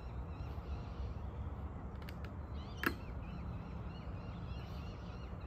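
Steady low outdoor rumble with faint bird chirps. About three seconds in there is one sharp plastic click, with a couple of fainter clicks just before it: small plastic cover plugs being pressed into the screw holes of a PVC fence rail bracket.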